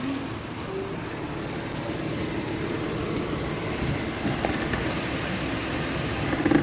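Nissan VQ40DE 4.0L V6 idling steadily and quietly. There is no buzzing or whining now that a genuine Nissan oil filter has replaced the aftermarket filter whose bypass valve had been vibrating.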